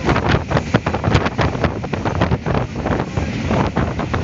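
Diesel locomotive at speed heard from inside its cab: wind buffeting the microphone through the open cab window, over the engine and running gear, with many quick, irregular knocks and rattles.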